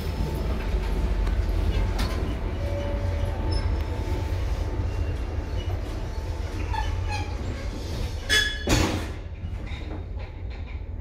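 Steady low rumble of the metro station around the open lift car. A little over three-quarters of the way through, the lift's stainless steel sliding doors shut with a loud clunk.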